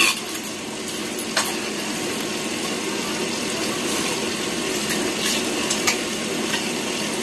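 Spoons clinking now and then against plates and food over a steady background whir.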